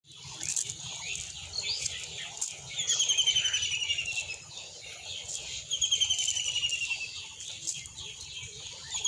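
A bird calling a quick run of short notes that falls in pitch, repeated about every three seconds.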